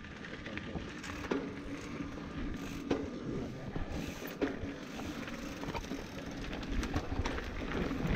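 Norco Range enduro mountain bike rolling down a dirt trail: a steady rumble of tyres and riding noise with scattered clicks and rattles from the bike, growing louder toward the end as it picks up speed.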